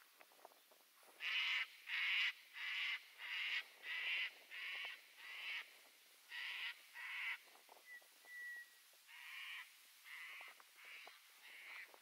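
A crow cawing in a long run of harsh, evenly spaced calls, about one and a half a second, starting about a second in and growing fainter toward the end. A brief thin whistle from another bird comes in a pause near the middle.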